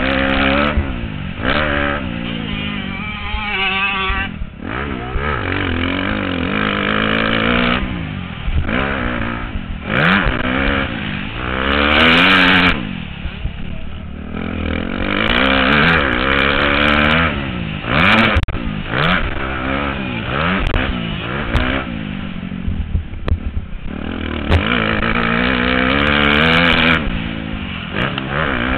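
A 125cc motocross bike's engine revving up and dropping off again and again as the rider works the throttle and gears, heard from a helmet-mounted camera, with scattered sharp knocks.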